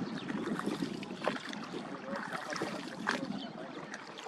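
Water lapping and splashing against the hull of a small wooden boat moving across the lake, with irregular small splashes over a steady wash.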